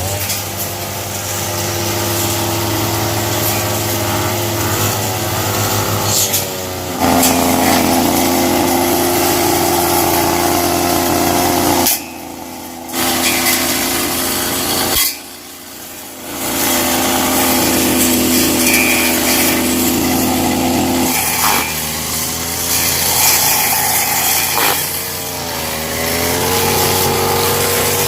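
Small petrol engine of a handheld power tool running and being throttled up and down, its pitch stepping up and falling back several times, with two brief drops near the middle.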